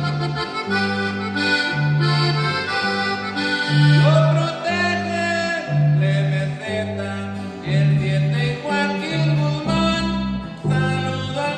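Instrumental passage of a norteño-style corrido: an accordion plays the melody over an electric bass alternating between two low notes in a steady oom-pah pattern, with guitar strumming underneath.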